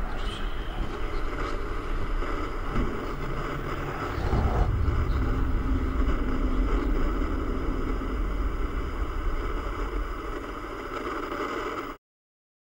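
A low, steady rumbling drone from the trailer's soundtrack. It swells about four seconds in and cuts off abruptly just before the end.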